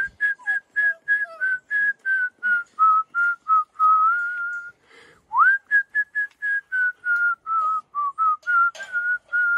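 A man whistling to puppies: a quick upward slide, then a run of short whistled notes, about three a second, at a fairly steady pitch. After a brief pause about five seconds in comes a second upward slide and another run, ending in a long held note.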